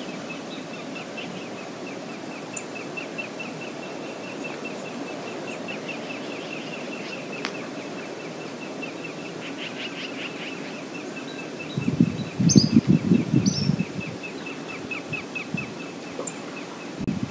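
Outdoor river ambience: a steady low rush, with a rapid high ticking call repeating about three times a second and a few short bird chirps. About twelve seconds in, a louder low rumbling lasts a couple of seconds.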